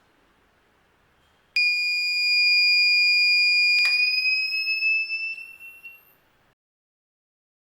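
Alarm buzzer of a laser security alarm circuit sounding one steady high-pitched tone, starting about one and a half seconds in. About four seconds in there is a click, and the tone rises slightly in pitch as it fades away over the next two seconds.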